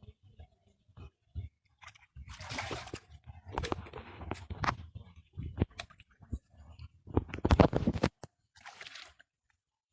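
Water splashing and sloshing in irregular bursts as hands work through shallow water catching fish, loudest about seven seconds in.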